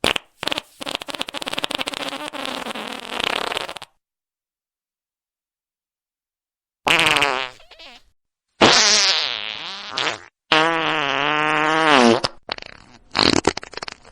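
A series of farts. First comes one long rattling fart of about four seconds. After a pause come three drawn-out pitched farts whose pitch bends up and down, then a few short sputters near the end.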